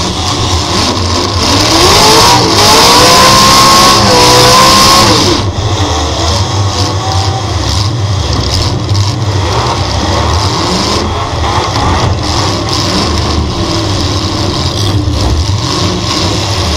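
V8 dirt-track race car engine heard on board, revving up with a rising pitch for a few seconds, then running at steady throttle. A loud rushing hiss rides over it between about two and five seconds in.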